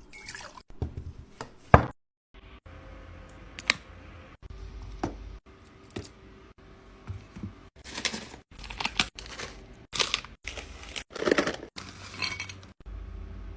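A run of short cut-together clips of small objects being handled: sharp clicks, taps and clinks with a little crinkling, the sharpest click about two seconds in.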